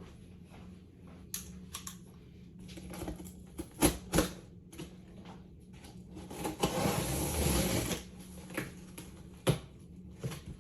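Handling noises: scattered clicks and knocks, two sharper ones close together about four seconds in, and a rustling sound lasting about a second and a half a little later.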